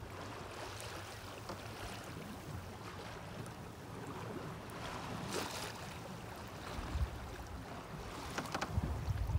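Water washing against the hull of a small sailboat under way, with wind gusting on the microphone, strongest near the end. A few short crackles come about five seconds in and again near the end.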